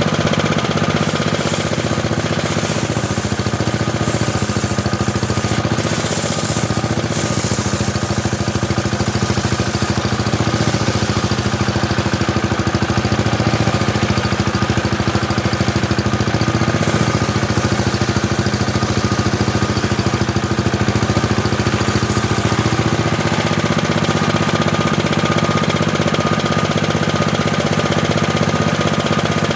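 Homemade table saw running with a steady, rhythmic mechanical drone, with a hissing rasp from about a second in to about seven seconds in as the blade cuts through teak.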